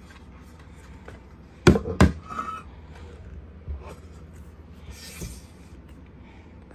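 A 10-inch car-audio mid-bass speaker being turned over by hand on a glass counter: two sharp knocks close together about two seconds in, then a couple of lighter knocks and handling noise.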